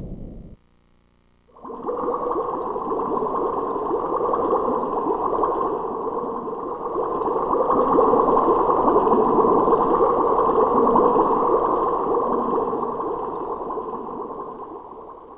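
Synthesized stream-of-water sound effect from a karaoke machine's Roland SC-88 sound module: a steady rushing noise that starts about a second and a half in, swells louder in the middle and fades out near the end.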